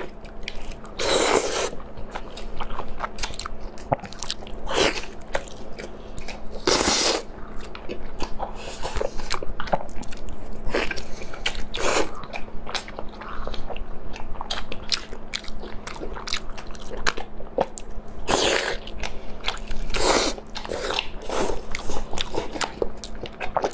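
Close-up eating sounds of pork being bitten, torn and chewed: wet chewing and lip smacks with a louder bite every few seconds. A faint steady hum runs underneath.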